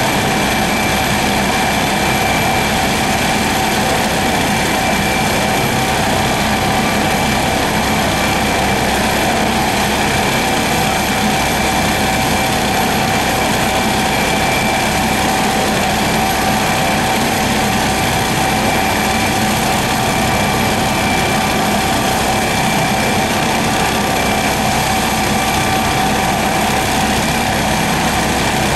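MD 902 Explorer air ambulance helicopter running on the ground with its rotor turning, before lift-off: a steady, even turbine whine with several high steady tones over the rotor and engine noise, unchanging throughout.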